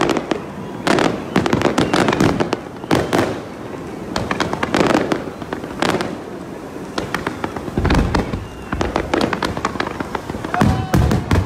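Fireworks display: a dense, irregular run of aerial shells bursting with sharp bangs and crackles, with heavier deep booms about eight and eleven seconds in.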